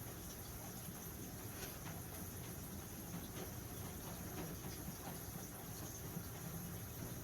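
Faint scratchy strokes of a squeegee spreading chalk paste over a stencil transfer, a few light scrapes over a steady hiss.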